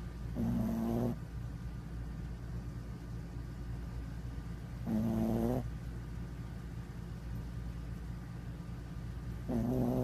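A small dog snoring in its sleep: three short, pitched snores about four and a half seconds apart.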